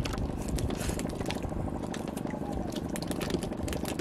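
Water lapping and dripping around a small wooden boat as a handline is hauled in by hand, with many scattered small clicks and splashes over a steady low rumble.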